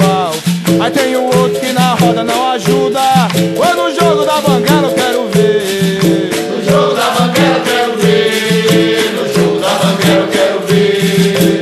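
Capoeira music: berimbaus with shaker rattles and other percussion playing a steady rhythm.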